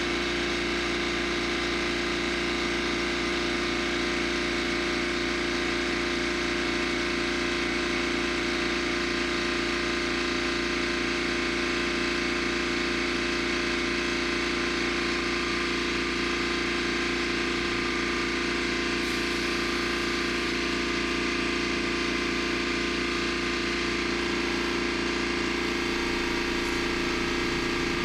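Air compressor kicking on and running steadily, its motor and pump making a constant hum with a fast, even low pulsing.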